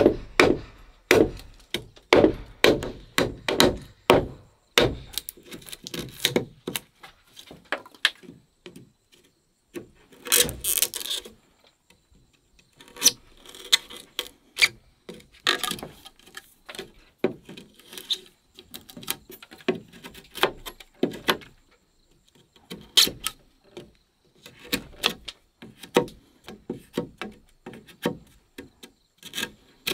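Wood being chopped and knocked by hand: a quick run of sharp strikes, about two a second, in the first few seconds, then sparser knocks, with a short scraping rasp about ten seconds in.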